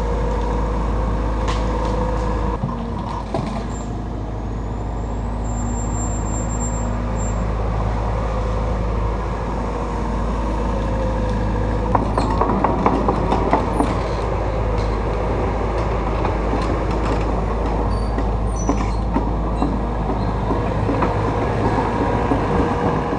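Takeuchi TB290 excavator's diesel engine running steadily while working, its pitch shifting slightly with load. About twelve seconds in comes a short stretch of rattling and clattering.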